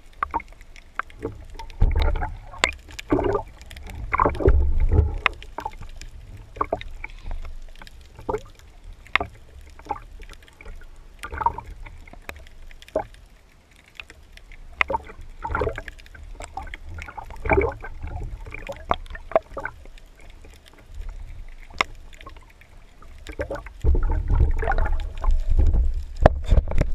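Underwater water noise at a camera mounted on a wooden speargun: water sloshing and gurgling against the housing in irregular surges, with scattered sharp clicks and knocks. The low rushing swells about two and four seconds in and again near the end.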